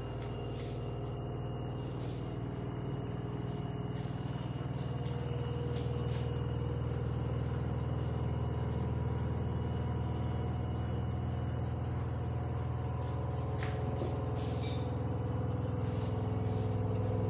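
LG washing machine running with a steady low drone, like an aeroplane going by, slowly growing louder; a few faint clicks on top.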